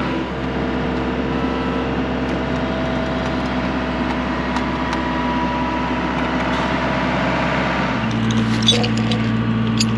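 Engine of a post-pulling machine running steadily; about eight seconds in its speed steps up, and a few sharp knocks follow near the end.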